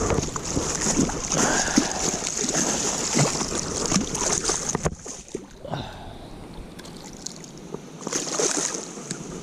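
Water splashing and sloshing, with scattered small knocks, as a hooked trout is brought in. It dies down about halfway through and picks up again briefly near the end.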